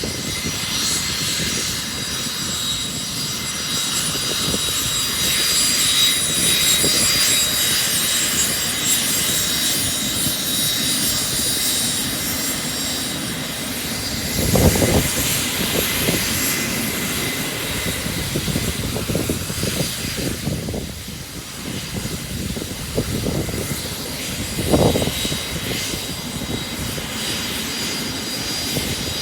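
Cessna Citation III business jet's two Garrett TFE731 turbofans running at taxi power: a steady jet rush with a high whine. Two brief louder bumps come about 15 and 25 seconds in.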